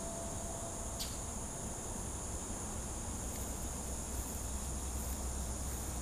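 Steady, high-pitched drone of an insect chorus in the trees, with faint regular chirping pulses joining about three seconds in. A single click about a second in, and a low rumble underneath that grows in the second half.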